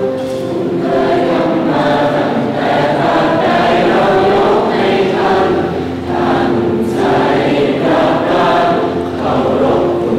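A large group of voices singing a slow song together, with long held notes and short breaks between phrases.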